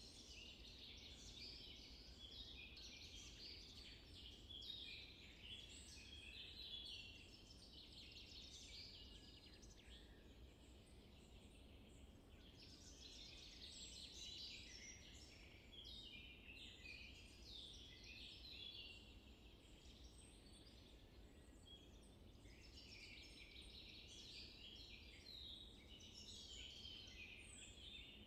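Faint chorus of small birds chirping and twittering, heavier in spells a few seconds long and thinner between them, over a low, steady background rumble.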